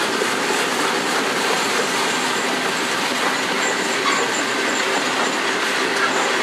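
Union Pacific freight train of flatcars loaded with armoured military vehicles rolling past close by: a steady noise of steel wheels running on the rails, with a faint clicking over the rail joints.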